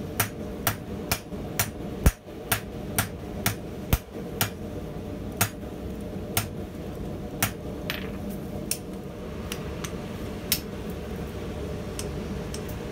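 Hand hammer striking a red-hot steel bolt held in tongs on forging dies, sharp ringing blows about twice a second, then slowing to a few widely spaced blows that stop about ten seconds in. A steady low hum runs underneath.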